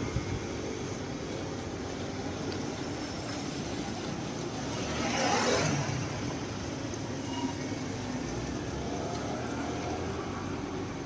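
Street traffic ambience: a steady hum of traffic, with one vehicle passing by about five seconds in, its noise swelling and fading over a second or two.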